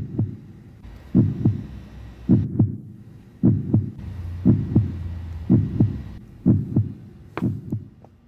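Heartbeat sound effect: a slow, steady lub-dub double thump repeating about once a second, eight beats in all, over a faint low hum.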